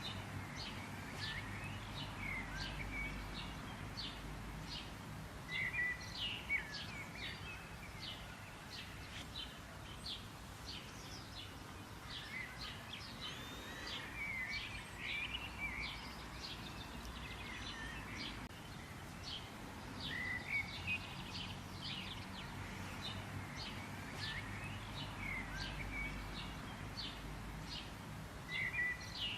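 Birds chirping and twittering in many short, quick calls, over a steady low background rumble.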